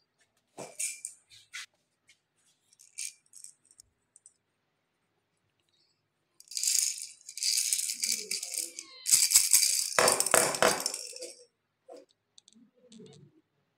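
Plastic baby dumbbell rattle being shaken, the beads inside rattling in a run of loud bursts for about five seconds, beginning about six and a half seconds in. Before it come a few faint clicks of plastic toys handled, and after it a few soft knocks as the rattle is set down on the table.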